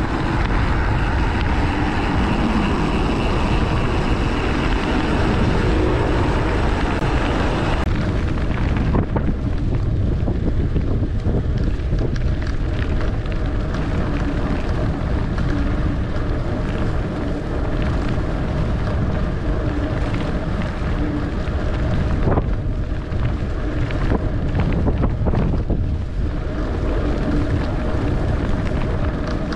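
Wind buffeting the microphone of a bicycle-mounted camera while riding, a steady loud rushing. It turns duller about eight seconds in.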